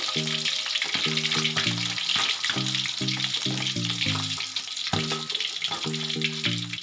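Pieces of pressure-cooked mackerel deep-frying in a wok of hot oil, a steady sizzle full of fine crackles. Background music with a repeating low melody plays underneath.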